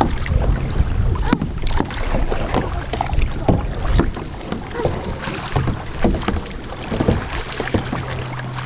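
Kayak paddling: the paddle dipping and splashing in the water in irregular strokes, with short clicks and drips.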